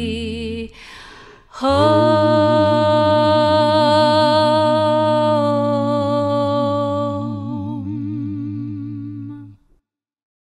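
A single voice ends a sung phrase, takes a brief breath, then hums one long closing note with vibrato for about eight seconds, fading and stopping shortly before the end.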